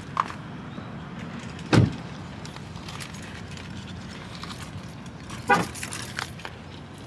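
Two short thumps, a loud one about two seconds in and another about five and a half seconds in, with a few lighter clicks and rattles over a steady low hum.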